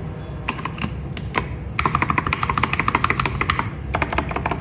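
Mechanical keyboard Enter key fitted with an Akko Jelly Sponge tactile switch being pressed: a few single clacks, then a fast run of presses for about two seconds. It has a ringing, echoey sound.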